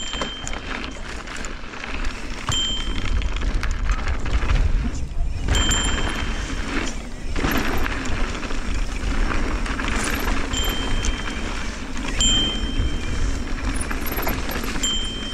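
Mountain bike rolling fast down a loose, dry dirt singletrack: wind buffeting the action camera's microphone over the crunch of tyres on loose dirt, with scattered clicks and rattles from the bike.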